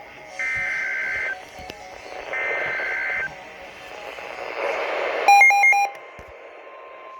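Emergency Alert System digital data bursts from a weather radio broadcast: about three one-second bursts of warbling two-tone screech, each followed by a pause. A swelling hiss follows, then a short, loud trill of rapidly alternating high and low beeps. A faint steady alert tone begins near the end.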